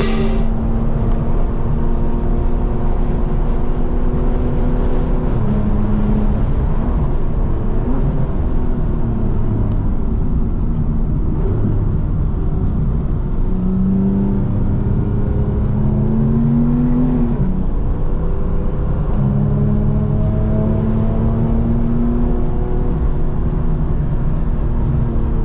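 Porsche 991 GT3's flat-six engine heard inside the cabin under hard driving, its note climbing and dropping several times as it is taken through the gears.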